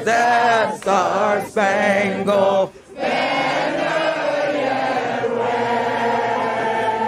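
A large crowd singing together. In the first few seconds one voice stands out, singing short phrases with brief breaks. After a short gap, the massed voices carry on holding long notes.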